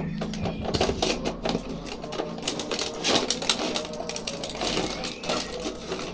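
Cardboard toy box and clear plastic blister tray being handled and pulled open, the plastic crinkling and crackling in a dense run of small clicks.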